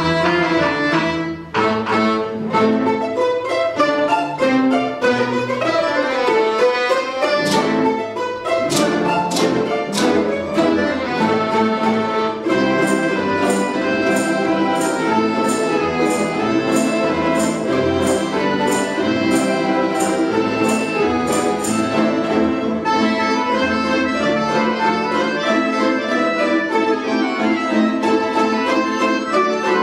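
Russian folk-instrument ensemble playing a lively piece, several melody lines over a steady accompaniment. For about ten seconds in the middle, a crisp high tap marks the beat about twice a second.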